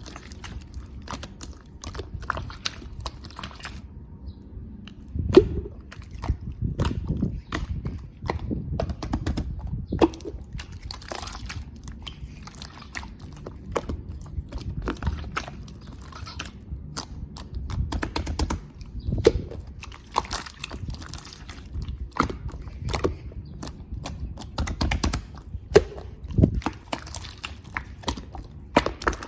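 Wind buffeting the camera microphone on a rooftop: a gusty low rumble that swells and fades every few seconds, with crackling clicks, sounding much like breath blown through the nose.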